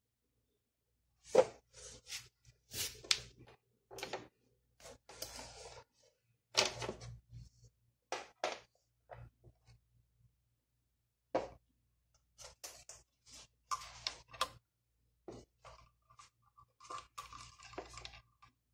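Clicks and knocks of metal tools, wires and a socket extension being handled and set down on a table. Near the end a faint steady buzz comes from a 12 V continuity tester's buzzer as its two bare leads dip into water, sounding weakly because water conducts only a little at 12 V.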